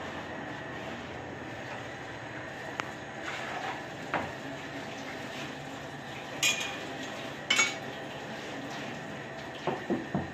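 Bakery work at a bread oven: over a steady background noise, a few sharp clanks and scrapes as the baker's long peel knocks against the oven mouth, then a quick run of soft thumps near the end.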